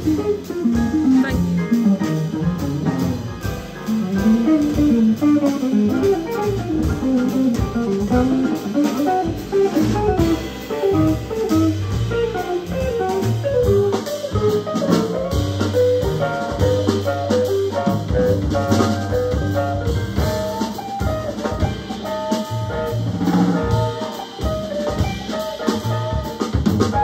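Live jazz guitar solo on an archtop electric guitar, quick single-note lines over upright bass and drum kit.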